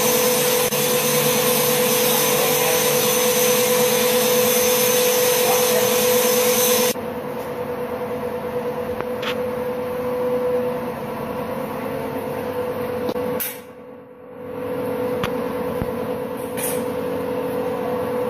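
Gear-cutting machine running steadily while cutting teeth into aluminium gear blanks: a constant whine over an even mechanical hiss and hum. The sound changes abruptly about seven seconds in and dips briefly about two-thirds of the way through.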